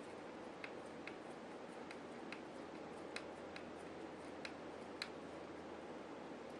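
Faint, irregular light clicks and ticks of small screws and a driver against a beadlock ring while the ring screws are put in, over a steady low hiss.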